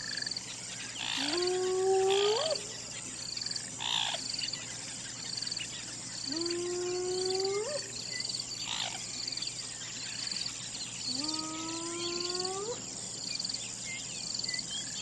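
Spotted hyena whooping: three long calls about five seconds apart, each starting low and sliding up in pitch at the end. Behind them runs a steady background of high chirping, pulsing about once a second.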